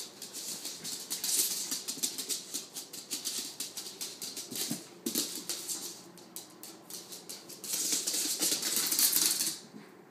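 A West Highland White Terrier's claws clicking and scrabbling on a hard floor as it scrambles and tussles with a large stuffed toy. The rapid clicking comes in three busy spells and is loudest near the end.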